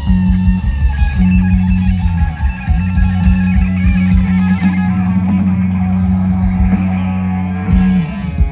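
Rock band playing live through a large outdoor PA, heard from the crowd: electric guitars over a sustained bass, loud, with the music breaking off near the end.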